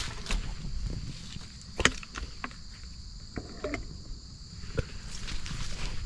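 Garden pump sprayer spraying diesel fuel into a brush pile: a steady high hiss, with scattered snaps and crackles of twigs and dry leaves.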